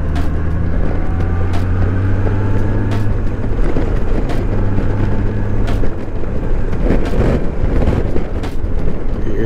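Touring motorcycle's engine running steadily at highway cruising speed, heard from the rider's seat with wind and road noise rushing past the windscreen.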